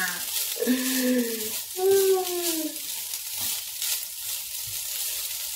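Fried rice sizzling in a non-stick frying pan while a wooden spatula stirs and scrapes it around. Near the start there are two drawn-out vocal sounds, the second falling in pitch.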